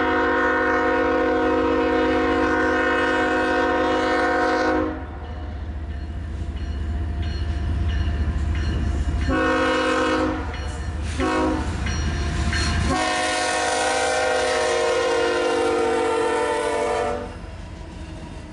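The air horn of a GE ES44AH diesel locomotive leading an intermodal freight sounds the grade-crossing signal as the train approaches: a long multi-tone blast, then two short blasts, then a final long blast, over the low rumble of the diesel engines. After the last blast stops near the end, the double-stack container cars roll past.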